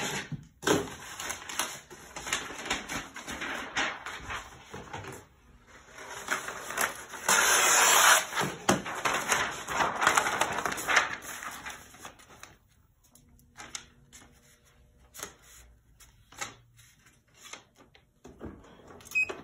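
A large sheet of brown kraft paper being handled and crinkled, with crackly rustling and small clicks for about twelve seconds, loudest in the middle. After that come a few scattered light taps as the paper is smoothed flat.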